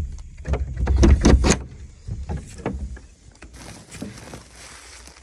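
Rusty sliding door bolt rattling and knocking as a door is opened, a dense run of clanks and knocks in the first second and a half. Then a quieter rustle of a woven plastic grain sack being reached into.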